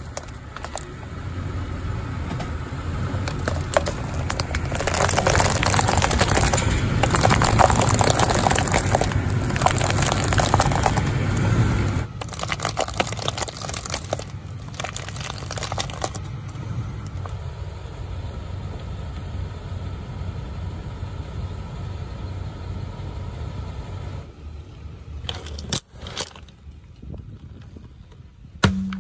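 A car tyre rolling slowly over a pile of plastic spring clothes pegs, which crackle and snap under its weight over the low rumble of the car. The crunching is dense for the first twelve seconds or so, then thins to scattered snaps.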